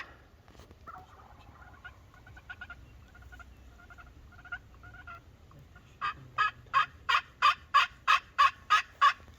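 Wild turkey toms calling: soft, short call notes for the first few seconds, then a loud rapid gobbling run of about ten notes, roughly three a second, starting about six seconds in.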